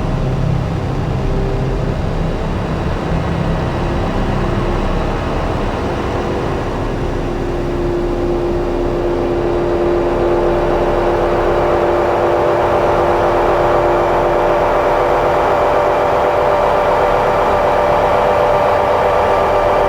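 Slowly evolving electronic drone from a Make Noise Strega and Meng Qi Wingie with looped layers: a dense, rumbling, noisy texture, over which steady sustained tones come in about halfway through and grow louder.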